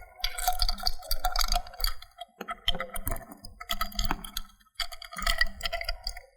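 Metal parts clicking and clinking in four short bursts of rattling with a faint metallic ring, as a replacement switch mechanism is worked into a Flotect V4 flow switch housing and turned to line up its internal connection.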